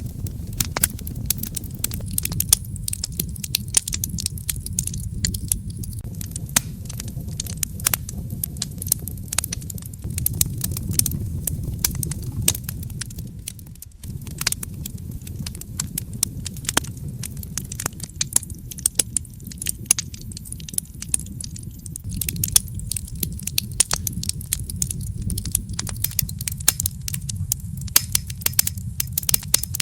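Wood fire crackling and popping in a fireplace: irregular sharp snaps over a steady low rumble of the flames, with a brief dip about halfway through.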